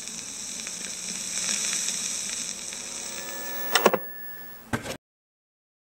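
Intro sound effect: a steady high hiss that swells for a few seconds, then a cluster of sharp hits followed by one more, after which the sound cuts to dead silence.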